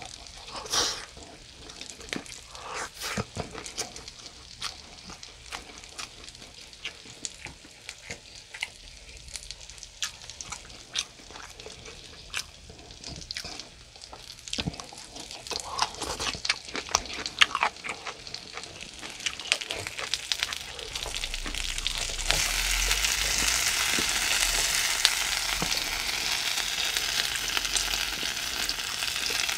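Mackerel frying in oil on a grill pan: a sizzle that grows louder and steadier from about 22 seconds in. Before that it is faint under scattered short clicks and smacks of eating.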